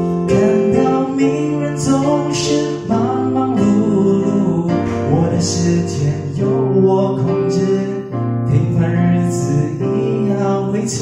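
A man sings a slow Mandarin ballad through a microphone, accompanied by an electric keyboard.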